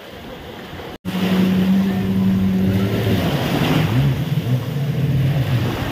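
Wind and surf, then after an abrupt cut a motorboat engine running loudly, its pitch dropping and wavering as the throttle changes.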